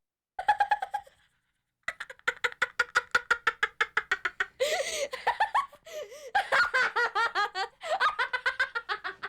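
A person laughing: a short laugh, then after a brief pause a long run of rapid, high-pitched laughter with rising and falling swoops.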